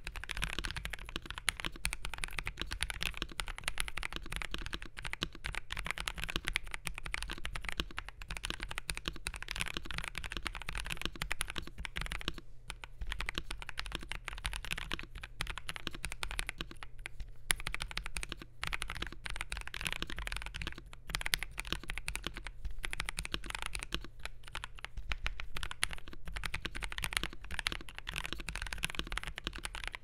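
Fast continuous typing on an FL.eSports MK870 mechanical keyboard with lubed, filmed Gateron G Pro 2.0 Brown tactile switches on a polycarbonate plate. The keystrokes come as a dense stream of clicks, with a few brief pauses.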